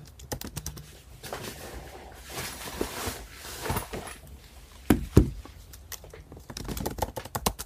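Computer keyboard typing: scattered keystroke clicks, with two dull thumps about five seconds in.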